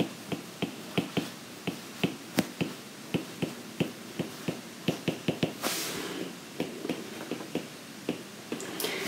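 Stylus clicking and tapping on a tablet screen during handwriting: irregular sharp clicks, a few a second.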